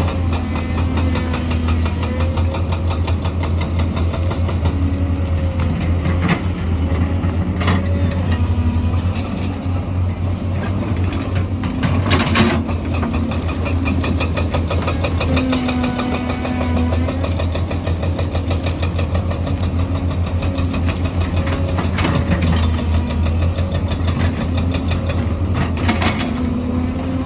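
Diesel engine of a heavy excavator running steadily with a deep hum and fast ticking. Several sharp knocks come through, the loudest about halfway through.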